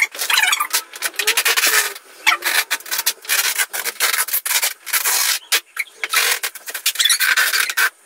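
Adhesive tape being pulled off the roll again and again as it is wound around a person tied to a chair: a loud, rough rasping screech in a series of long pulls with short breaks.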